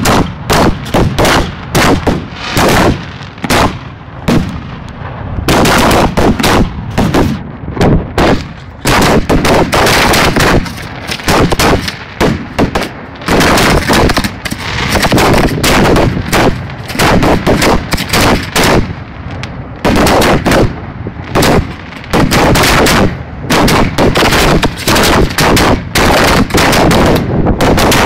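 Fireworks display heard at close range: a dense, continuous barrage of rapid bangs from shells and mines going off one after another, with only brief gaps.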